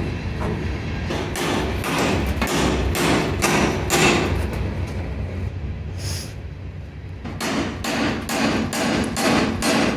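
Small hammer striking a punch against the door hinge on a truck's cab pillar: a run of sharp metal taps, about two or three a second, with a pause of about two seconds in the middle.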